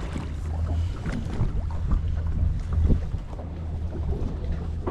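A boat's engine running with a steady low drone, wind buffeting the microphone over it, and a few light knocks.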